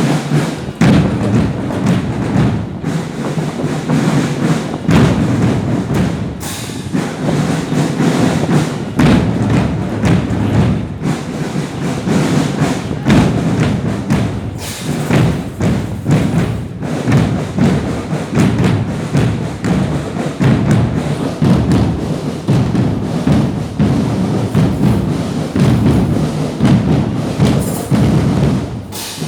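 Drum-led music with a run of repeated heavy thuds and percussion strikes.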